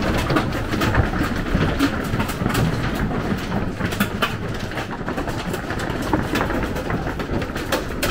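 Hailstones pelting the motorhome's roof and roof vent from inside the coach: a dense, rapid clatter of impacts over a low rumble, sounding like heavy rocks.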